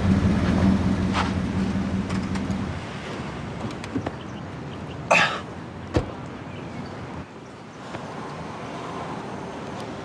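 A car's low engine hum for the first two to three seconds, fading, then a man crying in a parked car: a short choked sob about five seconds in, and a sharp knock just after.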